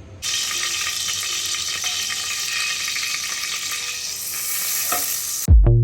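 Cauliflower frying in hot oil in a pressure cooker, a steady sizzle. Near the end the sizzle cuts off suddenly and background electronic music with a heavy beat comes in.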